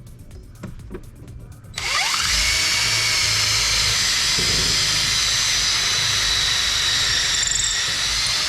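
Power drill spinning up about two seconds in and running at a steady pitch for about six seconds, stopping near the end.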